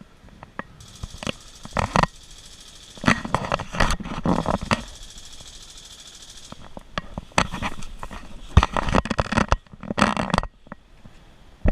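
Irregular rustling and crunching bursts, like a player moving through dry brush, with a steady high hiss that comes in about a second in and stops just past the middle.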